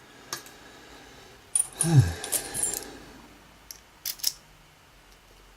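Small metal clicks and clinks as a pin-tumbler lock and its tools are handled during disassembly, in a few short clusters, the loudest about two seconds in with a dull knock among them.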